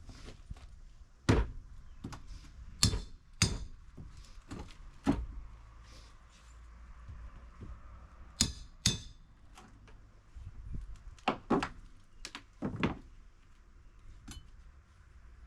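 Hammer blows on wooden deck boards during demolition: about ten sharp, irregular strikes, several coming in quick pairs.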